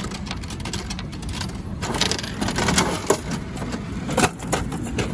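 Coins dropping into a gachapon capsule-toy machine, then the handle being turned with a clatter of plastic-and-metal clicks and knocks as the capsule is released into the outlet, with one sharp knock near the end.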